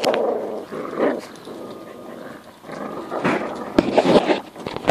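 Puppies growling in play while tugging at a teddy bear together, in rough bouts: one at the start, a quieter spell, then a louder stretch about three to four seconds in.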